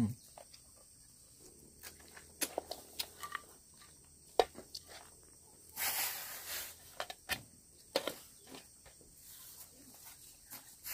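Faint, scattered light taps and clicks of a ceramic bowl being handled over a metal tray of chopped boiled chicken while seasoning is tipped onto it, with a brief rustle about six seconds in.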